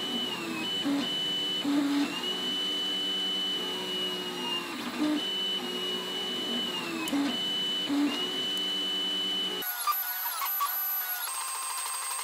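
3D printer printing: its stepper motors sing in pitched tones that hold, step and glide in pitch as the print head changes direction. About nine and a half seconds in, the pattern changes abruptly to different, higher notes.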